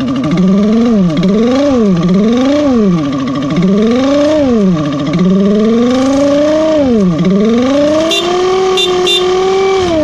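Scooter engine revved up and down with the throttle: several quick blips that rise and fall back, then a slower climb to higher revs that is held near the end.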